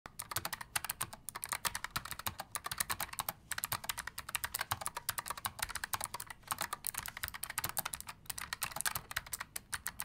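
Fast typing on a Keychron K3 Pro low-profile mechanical keyboard with Gateron low-profile clicky blue switches: a dense, uneven run of sharp key clicks, broken by a few brief pauses.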